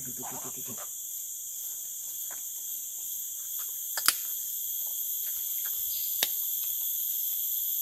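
Steady high-pitched chorus of forest insects, with a few sharp clicks over it; the two loudest come about four and six seconds in.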